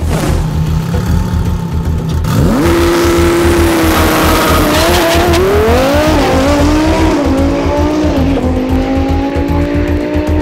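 Twin-turbo Audi R8 launching down a drag strip: about two seconds in its engine note comes in loud, then climbs and drops back in several steps as it shifts up through the gears and pulls away. Background music with a steady beat plays underneath throughout.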